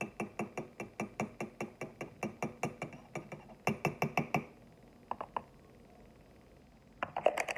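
A metal spoon clinking rapidly against the inside of a ceramic mug as it whisks batter, about five clinks a second. The stirring stops about four and a half seconds in, picks up with a few clinks, then comes back as a quick flurry near the end.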